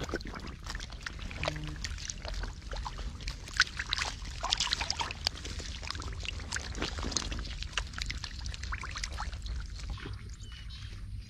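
Freshly caught catfish thrashing on wet mud and dry rice straw: a dense run of wet slaps and crackles that thins out near the end, over a low wind rumble.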